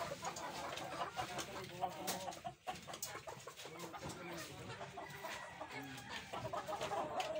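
Chickens clucking with many short, overlapping calls.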